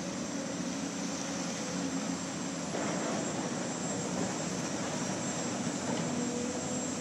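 Excavator diesel engine running steadily, a constant drone with a hiss over it, growing a little louder about three seconds in.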